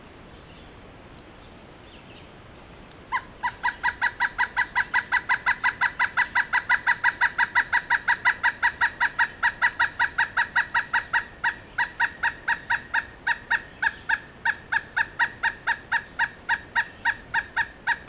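Pileated woodpecker calling a long, loud series of evenly repeated notes, about four a second, starting about three seconds in.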